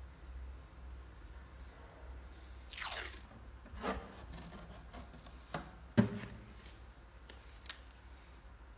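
Masking tape pulled off its roll, a short rip about three seconds in that falls in pitch, followed by a few light clicks and one sharp knock on the hard plastic tool case about six seconds in as the strip is pressed down.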